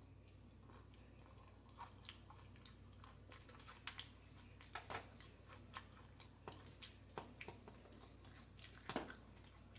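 Close-miked mouth chewing a mouthful of tortilla chips and taco salad, open-mouthed, with soft, irregular crunches and wet smacks.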